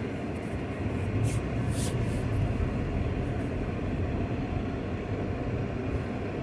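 Steady low rumble of a car's engine and tyres heard from inside the cabin while driving slowly, with a couple of brief hissy rustles about a second in.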